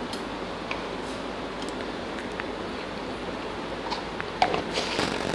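A spoon scooping ginger-garlic paste out of a jar into a small steel bowl, making a few faint clicks and scrapes over a steady background hiss.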